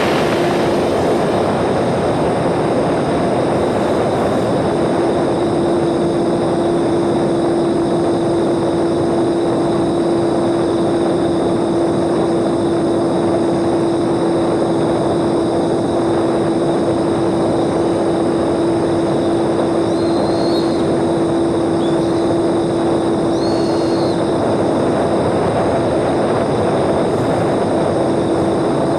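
Electric motor and propeller of a small homemade radio-controlled airplane running at steady throttle in flight: a constant hum over rushing air noise.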